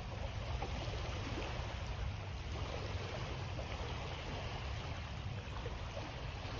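Small ripples of calm bay water lapping at a sandy shore, a steady gentle wash, over a low steady rumble.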